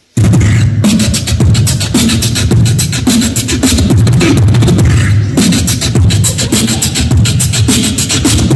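Beatboxing amplified through a microphone and PA loudspeaker: vocal kick-drum, snare and hi-hat sounds in a fast, steady beat that starts abruptly.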